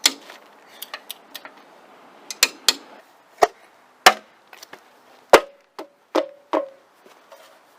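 Irregular knocks and clicks of hand tools being handled and set down, about a dozen over the stretch, some ringing briefly like metal.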